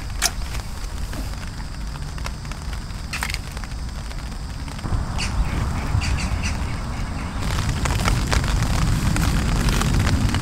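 Rain on a tent's fabric: scattered drops ticking and pattering over a steady low rumble.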